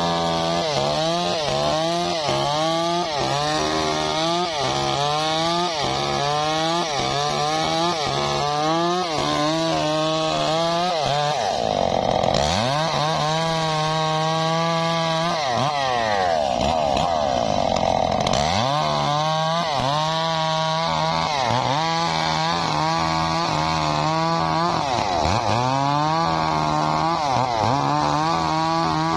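Stihl MS 381 two-stroke chainsaw running at full throttle, ripping lengthwise along the grain of a mahogany log. The engine note dips and recovers about once a second as the chain takes load, and holds steadier for a few seconds in the middle.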